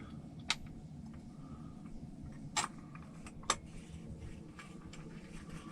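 A few light, sharp clicks of small parts and tools being handled, three of them spread over the few seconds, over a faint steady background hum.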